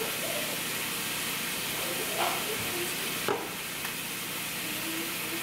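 Hamburger patties sizzling steadily in oil in a frying pan, with two short knocks, the second a little over three seconds in.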